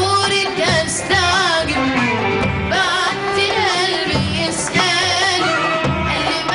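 Arabic song performed live: a male voice sings long, ornamented phrases that bend up and down in pitch, over an orchestra of strings with a steady percussion beat.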